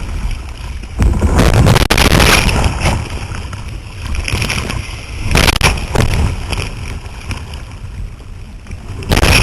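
Sea water splashing and sloshing around a kayak in rough water, over a heavy low rumble. Louder splashes come about a second in, at about five and a half seconds, and near the end.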